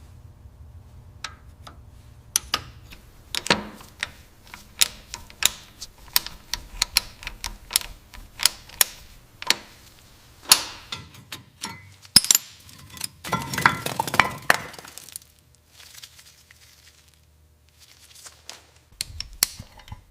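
Irregular sharp clicks and taps of hand tools on metal, with a brief scraping stretch a little past halfway.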